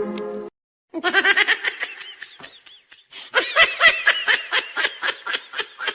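High-pitched laughter in quick repeated bursts, several a second, starting about a second in. Before it, a steady held tone cuts off about half a second in.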